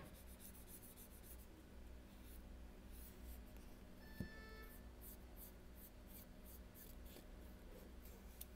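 Faint, repeated scratchy strokes of a cotton bud rubbed along the edge of an iPhone 7's metal frame, wiping away leftover screen adhesive. A brief faint tone sounds about four seconds in.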